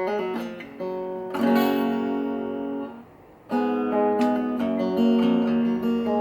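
Egmond archtop guitar being test-played after its repair: several plucked chords and notes ring out, with a short pause about three seconds in before more notes. The action is set at about 80 thousandths, and most notes play cleanly.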